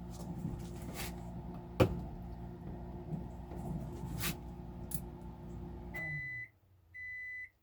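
Microwave oven running with a steady hum and a sharp knock about two seconds in. The hum cuts off about six seconds in, followed by two short, even beeps marking the end of the heating cycle.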